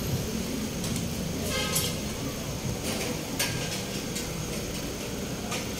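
Street traffic noise: a steady rumble of passing vehicles, with a few short sharp clicks or knocks.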